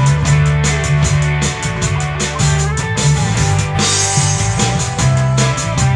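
A rock band playing an instrumental passage: electric guitar over a steady drum-kit beat, with a cymbal crash about four seconds in.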